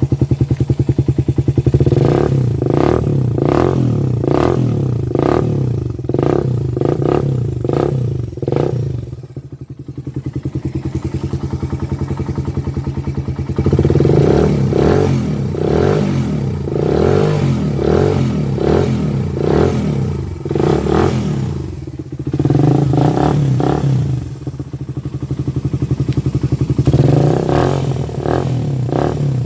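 Suzuki Raider 150's single-cylinder four-stroke engine revved in runs of quick throttle blips through its stock muffler, which has had its outlet hole enlarged. The engine drops back to idle about ten seconds in and briefly twice more between the runs of revving. The exhaust note is bassy and not very loud.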